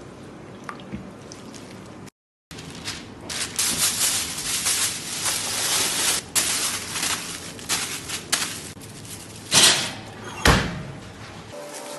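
Aluminium foil crinkling and rustling as it is pressed and folded over a pan, followed near the end by two loud knocks as the foil-covered pan is set into an oven.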